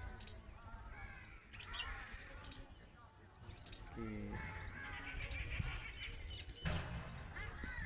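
Small birds chirping, with short high calls repeating every second or two.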